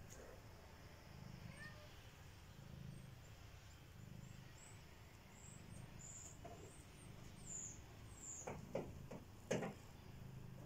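One-month-old kittens purring softly. The low purr swells and fades about every second and a half with their breathing. A few short knocks come near the end.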